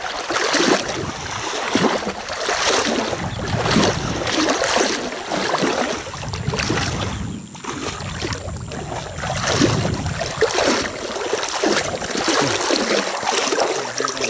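Water sloshing and splashing in irregular surges, roughly one a second, as of movement through shallow marsh water. A faint thin high whine sits under it in the second half.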